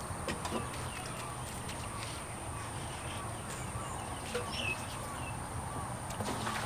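Dishes and a metal pot being handled on a wooden table, with a few light clinks, while a bird repeats a short call about twice a second.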